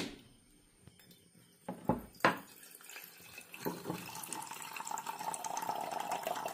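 A few sharp knocks as a coconut is worked on a makeshift coconut-opening jig, then liquid pouring steadily from about three and a half seconds in.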